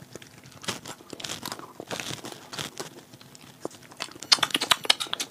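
Chewing of soft banana slices: wet mouth smacks and small clicks. Near the end comes a quick run of rapid crinkling clicks.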